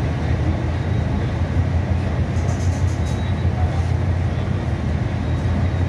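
Cabin noise of a Scania K320C city bus under way: its five-cylinder diesel and drivetrain give a steady low rumble over road noise. A few faint high clicks of the body rattling come about two and a half seconds in.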